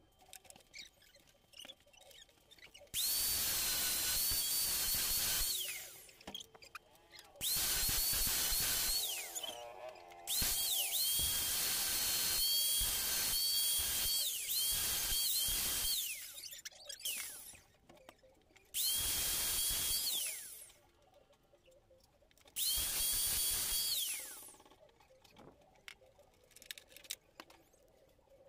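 A small high-speed electric power tool runs in five bursts of about two to six seconds. Each burst is a high-pitched motor whine that rises as the tool spins up and falls as it winds down.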